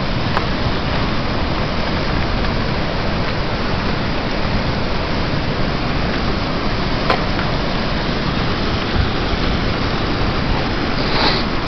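River water pouring over the crest of a low overflow dam into white water below: a steady, loud rushing, with a couple of faint clicks.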